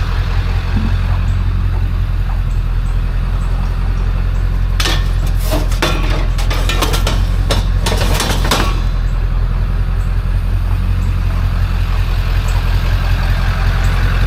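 Vehicle engine running with a steady low hum, broken by a burst of clattering knocks from about five to nine seconds in.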